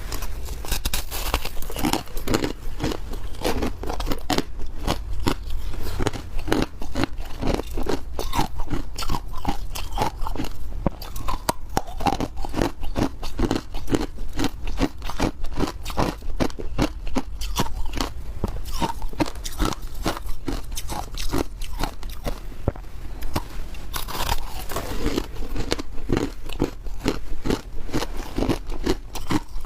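Ice being bitten and crunched between the teeth, with continuous chewing. The crunches come fast, several a second, with no pauses.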